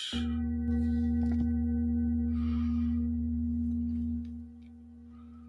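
Sound-healing tone: a steady ringing pitch with a row of higher overtones and a deep hum beneath it. It drops much quieter a little after four seconds in, and the main pitch lingers faintly.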